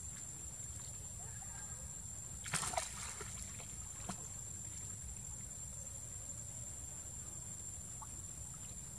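Monkeys swimming in a pool: a brief splash about two and a half seconds in, then a single small splash or slap about a second later, over a steady low rumble and a constant high-pitched whine.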